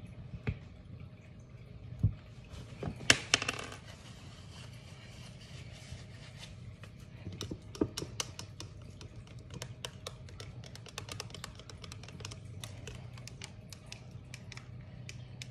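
Many small irregular clicks and taps of a utensil working a mixture in a clear plastic cup, with a louder clatter about three seconds in, over a faint steady low hum.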